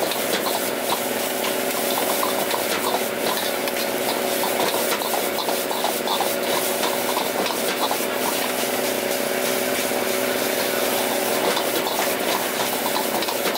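Fried rice being stir-fried in a wok over a gas burner. The burner gives a steady hissing hum, and a metal ladle repeatedly scrapes and clinks against the wok.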